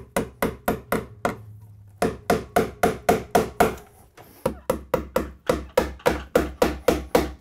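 A hammer driving metal cable staples into a wooden ceiling joist to fasten electrical cable. The light strikes come quickly, about four a second, in three runs with short pauses between, each strike ringing briefly.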